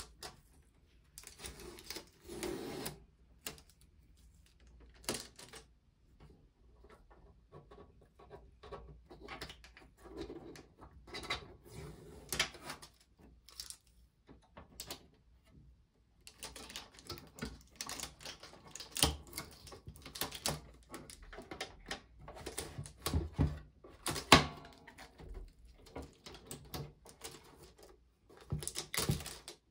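Sony CFD-S401 CD/cassette boombox being handled: protective tape peeled off its plastic case while the cassette and CD lids are opened and shut and the carry handle raised. It is an uneven run of plastic clicks, knocks and rustling, with a few short pauses and one sharp click about three-quarters of the way through.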